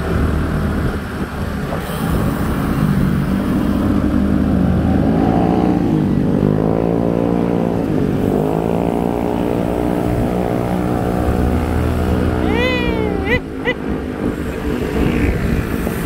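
Wind rushing over the microphone of a moving bicycle, with a motor vehicle's engine passing close by in the middle, its pitch dipping and rising for several seconds. A brief run of squeaky chirps comes near the end.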